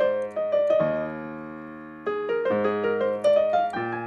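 Digital piano being played: a short phrase and a held chord that dies away, then from about halfway a new phrase of notes stepping upward in pitch.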